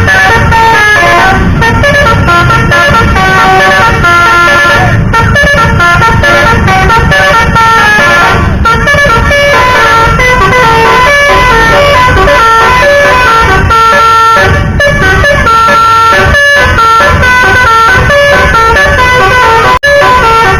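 A bus's telolet basuri multi-tone musical air horn playing a fast tune, very loud, its notes changing pitch several times a second over low vehicle rumble. The horn sound cuts out briefly near the end.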